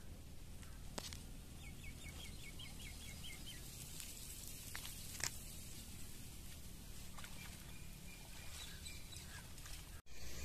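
Open-air field ambience with a steady low rumble, over which a bird gives a quick run of about nine short chirps about two seconds in. A few sharp clicks come through as well.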